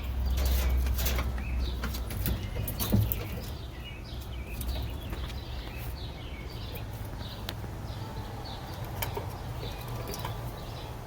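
Squirrels scrabbling and chewing close to the microphone: scattered sharp clicks and scratches, with a low rumble for the first three seconds. Repeated short high chirps run throughout.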